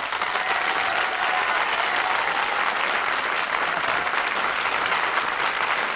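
Audience applauding steadily as a band number ends.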